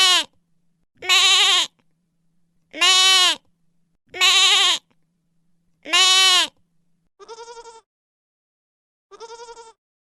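Adult goat bleating five times, each call under a second and arching in pitch. From about seven seconds in, a baby goat bleats twice, quieter and higher, with a quavering tremble.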